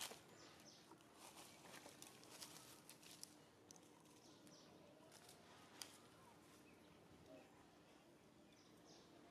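Near silence: faint scattered clicks and ticks over a faint steady low hum.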